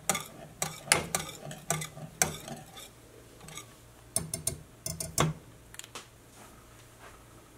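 Wire whisk beating a creamy roux in a stainless steel saucepan, its wires clicking against the pot's sides several times a second. The whisking pauses about three seconds in, comes back in a short run of clicks about four seconds in, and stops about six seconds in.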